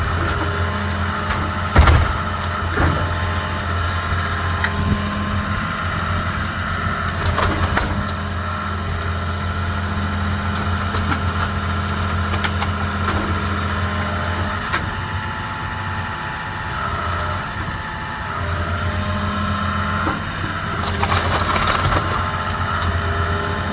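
A heavy demolition machine's diesel engine running steadily with a high whine while the wooden wall of an old house is crushed and splintered, with scattered cracks and knocks, the loudest about two seconds in. The engine eases off for a few seconds near the middle, then picks up again.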